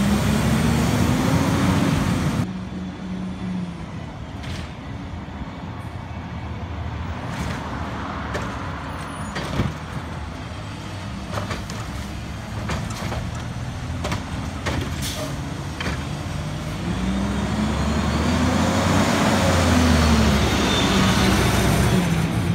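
Autocar WXLL garbage truck's CNG engine revving up, cut off suddenly about two seconds in. The engine then runs more quietly for a while, with scattered clicks. Near the end it speeds up and slows again in one long rise and fall as the truck pulls up.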